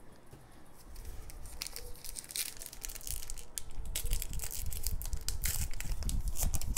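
Foil trading-card pack wrapper being crinkled and torn open by hand, in quick irregular crackles that start faint and grow louder and busier over the last few seconds.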